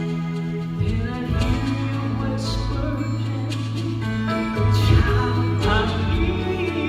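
Gospel vocal quartet singing in harmony over a sustained bass line, with the chord changing twice.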